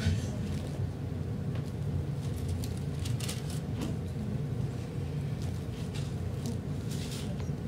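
Steady low hum of the room and microphone, with light, scattered paper rustles from Bible pages being turned at the pulpit.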